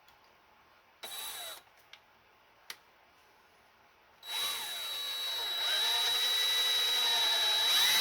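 Power drill boring out a broken bolt in an engine block: a short burst about a second in, then from about four seconds in a steady run with a high whine whose pitch dips and recovers as the bit loads up in the bolt.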